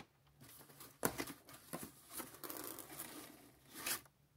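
Cardboard box and its packing insert being handled, with crinkling of the plastic bags around the speakers: a sharp knock about a second in, rustling and crinkling, and a louder rustle near the end.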